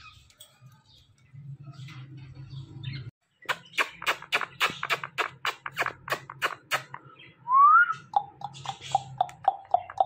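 Quick kissing smacks, about seven sharp clicks a second, as a man and an Indian ringneck parakeet press lips to beak. Then comes a short rising whistle and a fast string of short chirping notes on one pitch.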